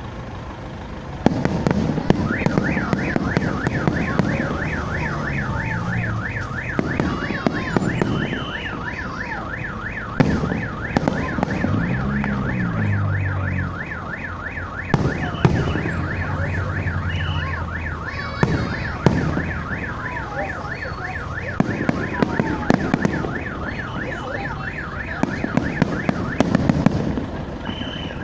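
Aerial fireworks going off in clusters of bangs and crackling, loudest in several stretches through the display. Under them an alarm warbles steadily, sweeping up and down several times a second; it starts about two seconds in and stops near the end.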